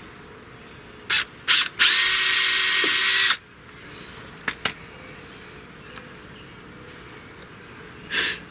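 Cordless drill drilling a pilot hole for a transducer bracket screw into a fiberglass hull: two quick trigger blips, then a steady run of about a second and a half. A couple of light clicks and another short noise follow near the end.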